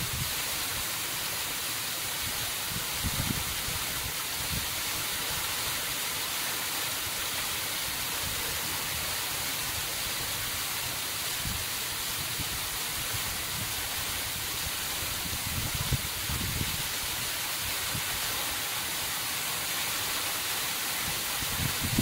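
Waterfall pouring down a rock face and splashing into a rock pool, heard from just behind the falling water: a steady hiss of spray and drops. There are occasional low thumps.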